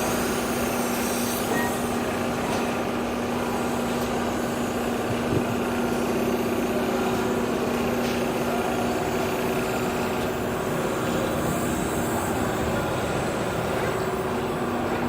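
Steady mechanical hum, like an engine running, holding two constant tones without change, with a small click about five seconds in.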